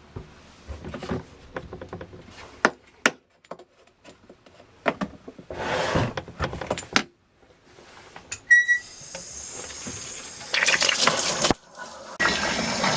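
Clicks and knocks of handling around a small portable washing machine, then a short high beep about two-thirds of the way in, followed by water running and pouring into the machine's tub, louder near the end.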